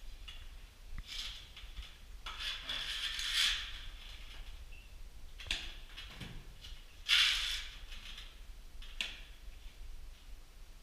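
Steel trowel scraping wet cement plaster, taking it from a mortar bucket and working it onto a wall: several rough scrapes, the longest about a second and a half, the loudest starting sharply a little past the middle.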